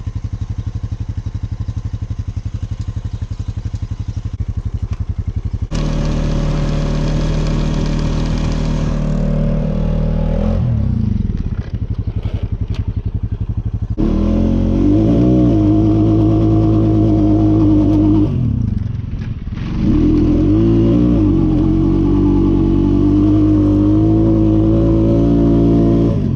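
Four-wheeler (ATV) engine running. It starts at a steady, pulsing low speed, then revs up about six seconds in and falls back. From about halfway through it revs harder and louder, with a short drop in the middle.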